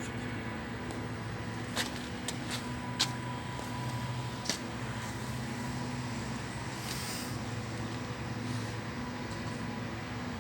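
Hanbell screw compressor on a chiller running with a steady, low hum, with a few sharp clicks or knocks in the first half.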